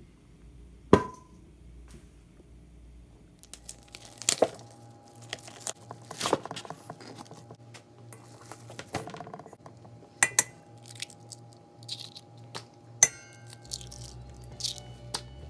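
Hands handling raw ground beef in a stainless steel mixing bowl: crinkling, crackling handling noises and scattered sharp clicks against the bowl. Near the end come a few louder cracks as eggs are cracked into the meat.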